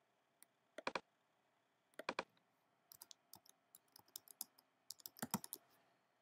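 Faint keyboard typing clicks: a couple of short clusters of clicks, then a quick run of key clicks from about three seconds in as a short word is typed.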